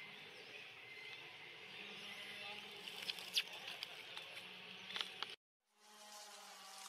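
Outdoor ambience of insects buzzing steadily, with a low hum that comes and goes and a few sharp clicks. The sound cuts out completely for a moment about five and a half seconds in.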